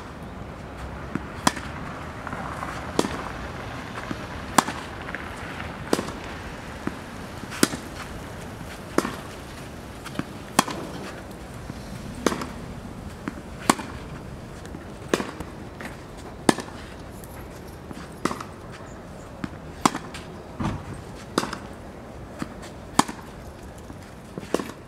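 Tennis ball struck by rackets in a steady rally: a sharp pop about every second and a half, with fainter knocks in between.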